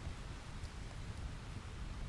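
Steady rain falling, with the low rumble of thunder underneath.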